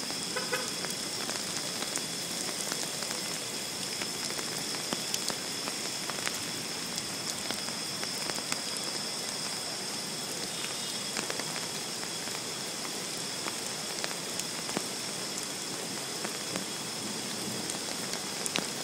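Steady rain falling on hard surfaces, with many small drops ticking close by.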